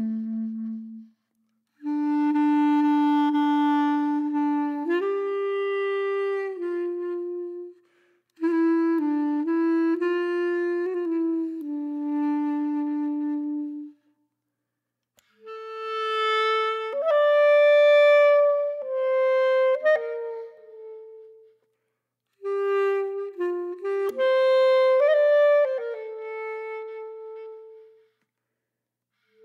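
Background music: a solo woodwind playing a slow melody of long held notes, in phrases about five seconds long separated by short silences, the later phrases pitched higher.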